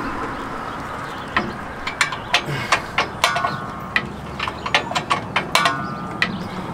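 Socket wrench working loose rusted rear brake bolts: a string of sharp metallic clicks and clinks, a few with a short ring, starting about a second and a half in.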